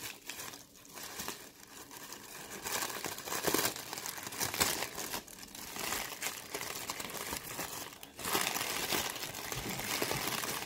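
Brown honeycomb kraft packing paper and tissue paper being handled, pulled apart and crumpled by hand: a steady papery crinkling and rustling. It is quieter for the first couple of seconds, then busier.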